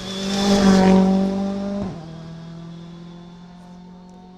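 A Ford Fiesta rally car's turbocharged four-cylinder engine at high revs as the car passes close by. It is loudest about a second in, drops in pitch just before two seconds as the car goes past, then fades as the car drives away.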